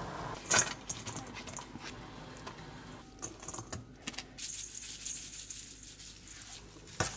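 Light metallic clinks and clatter of a stainless steel mesh strainer against a stainless steel mixing bowl as boiled soybean sprouts are tipped in, with a sharp clink about half a second in and another near the end. In the second half a soft hiss as red chili flakes are sprinkled over the sprouts.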